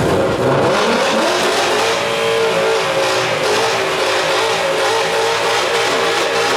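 Car engine revving: the pitch climbs during the first second, then the engine is held at steady high revs.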